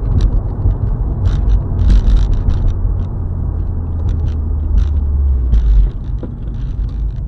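Steady low rumble of a car driving, as picked up by a dash camera inside the cabin: road and engine noise with scattered small clicks and rattles.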